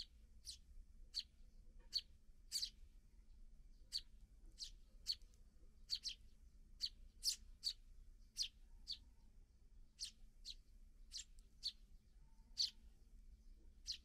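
Eurasian tree sparrows chirping: short, sharp chirps repeated in an irregular series, about one or two a second.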